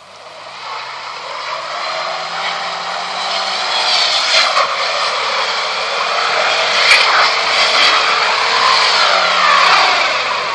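Mitsubishi Pajero 4x4's engine running hard under load as the tyres churn through deep snow, a steady engine note over the hiss of tyres and snow. It grows louder over the first two seconds as the vehicle approaches.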